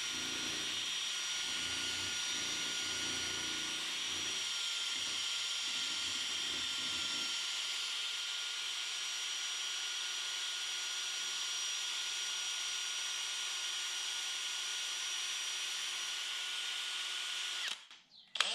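Electric drill running steadily with a constant whine, spinning a paint-stirring paddle in a tin of paint; it stops about 17 seconds in.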